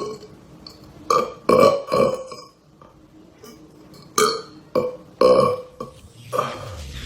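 A man burping loudly, about seven short belches in two quick runs with a pause between them.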